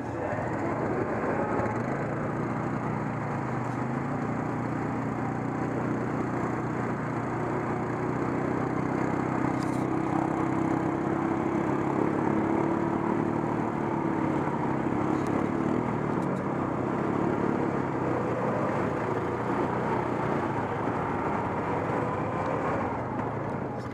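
ATV engine running steadily while riding, its pitch shifting only a little.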